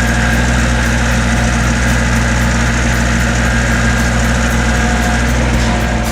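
Excavator engine running steadily at a constant pitch, a low, even hum.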